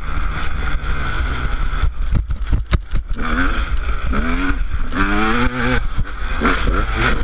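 Honda CR250 two-stroke dirt bike engine heard on board under way. It eases off around two to three seconds in with a few sharp pops, then revs up again, the pitch climbing several times as it pulls through the gears.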